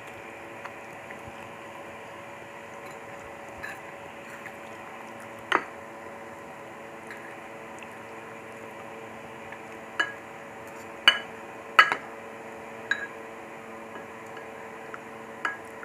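Fork and ceramic soup spoon clinking against ceramic bowls as noodle soup is scooped and eaten: a scattering of sharp clinks, one about five and a half seconds in and a cluster from about ten to twelve seconds in, over a steady background hum.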